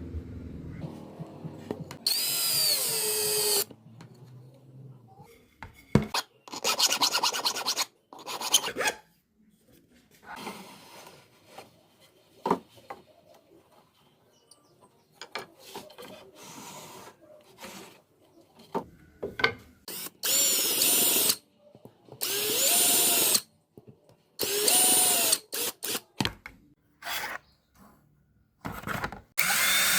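Electric drill run in short bursts of about a second, roughly eight times, its motor whine sweeping up and down in pitch as it spins up and works into wood. Between the runs there is quieter handling with small clicks and rubbing.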